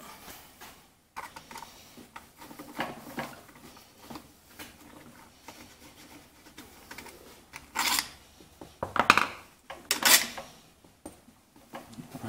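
Hands working the plastic air filter back plate off an Echo PB-500T backpack blower: scattered clicks, knocks and rattles of plastic parts, with a cluster of louder clatters about eight to ten seconds in.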